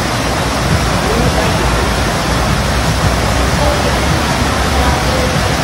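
Loud, steady rush of pumped water sheeting up the ramp of a surf-simulator pool.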